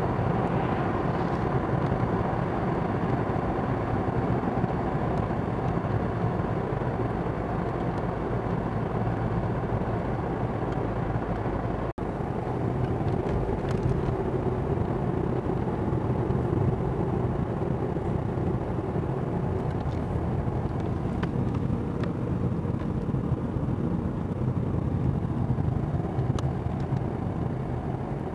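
Car engine and tyre noise heard from inside the cabin while driving at steady road speed. The sound cuts out for an instant about halfway through.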